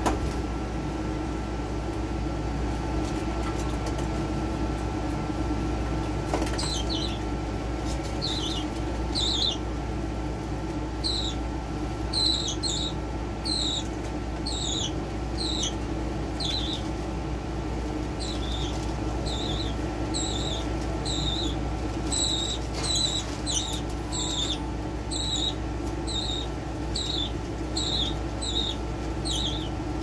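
Pet budgerigar chirping: short, high, downward-sliding chirps repeated a little over once a second, starting about six seconds in, over a steady low hum.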